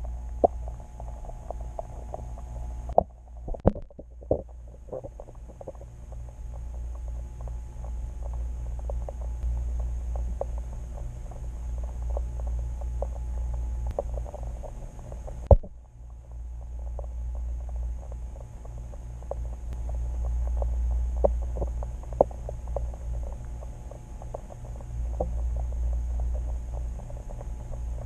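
Underwater audio from a camera submerged in a lake: a steady low rumble with many small scattered clicks and ticks, and a faint steady high whine.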